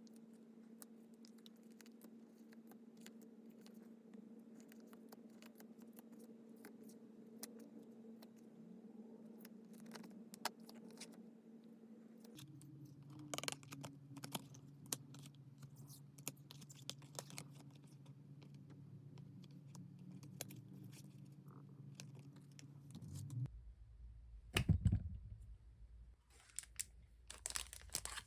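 Small goods and their packaging being handled and unwrapped: scattered light taps, clicks and rustles of plastic and paper, with louder bursts of crinkling or tearing near the end.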